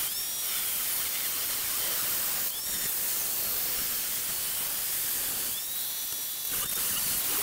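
Corded angle grinder with a cut-off wheel cutting through a metal pipe, a steady hissing grind. A higher motor whine comes through briefly at the start, about two and a half seconds in, and again near the end as the wheel eases in the cut.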